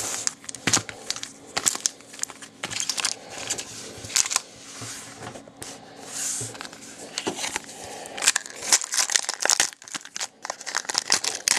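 Foil-wrapped trading card packs crinkling and crackling in irregular bursts as they are handled and sorted, ending with a pack being picked up and torn open.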